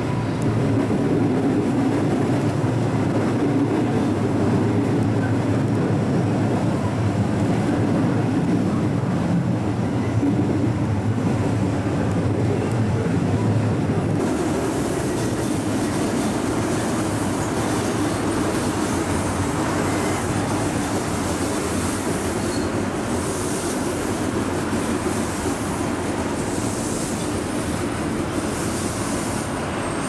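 Electric train running, first heard from inside the front cab as a steady low rumble of wheels and motors. About halfway through it changes abruptly to a JR West 221 series train passing close by on the track, a wider, hissier running noise of wheels on rail.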